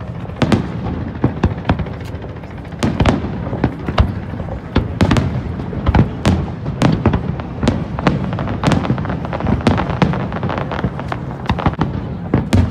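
Aerial fireworks shells bursting in quick, irregular succession: several sharp bangs and crackles a second over a steady low rumble.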